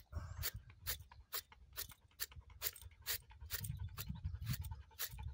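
A comb raked through a dog's thick coat in short strokes, about two scratches a second, over a low rumble: combing grass seeds out of the fur.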